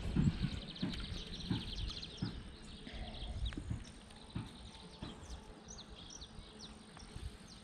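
Irregular knocks and rustles of handling close to the microphone, loudest in the first couple of seconds, then fading to scattered faint clicks.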